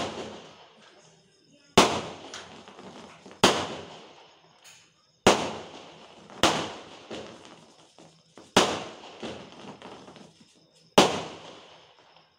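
Aerial firework shells from a 12-shot cake bursting overhead: six loud bangs, one every one and a half to two and a half seconds, each trailing off in crackle and echo.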